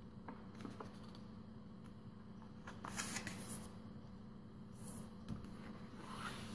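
A sheet of origami paper being folded and creased by hand, rustling and crinkling in short bursts, loudest about three seconds in and again near the end.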